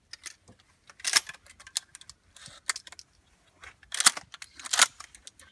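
Shotguns being loaded by hand: shells pushed into place and actions worked, a string of sharp metallic clicks and clacks. The loudest come about a second in and twice near the end.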